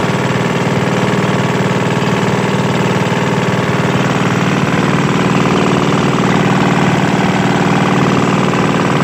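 Small boat engine running at a steady speed, loud and even with no change in pitch.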